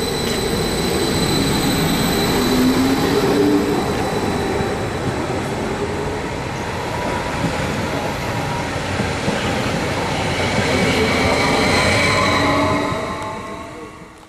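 Stadler FLIRT electric multiple unit (class 428) moving past along the platform, picking up speed, with wheel and track noise under a whining drive tone that rises in pitch. The sound fades out about 13 seconds in as the train clears the station.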